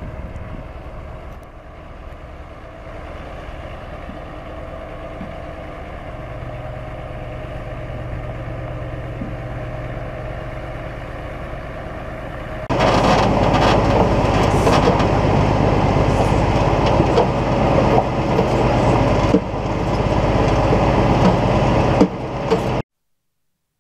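Heavy truck's Cummins diesel engine running steadily with a constant low hum. About 13 seconds in the sound abruptly gets much louder and rougher, then cuts off sharply near the end.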